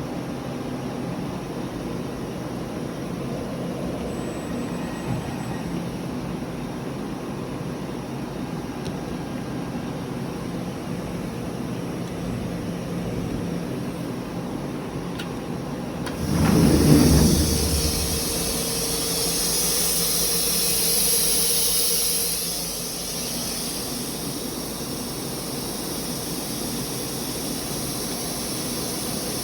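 Steady hum of a CNC machining center and shop machinery. About halfway through, a sudden low thump is followed by a loud hiss lasting around six seconds before it dies back to the hum.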